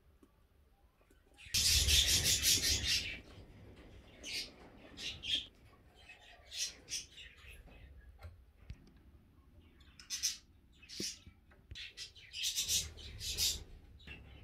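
Budgerigars chirping: a loud burst of rapid chattering about a second and a half in, then scattered single high chirps, and another chattering cluster near the end.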